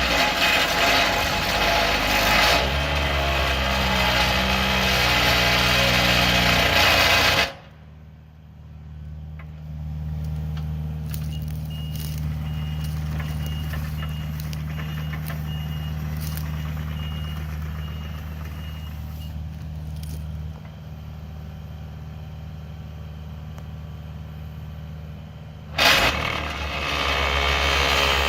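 Excavator-mounted Vibe Drive MX Puma vibratory post driver running loudly as it vibrates a wood post into the ground, cutting off after about seven seconds. The excavator's engine then runs on steadily with a few knocks, until the driver starts up loudly again near the end.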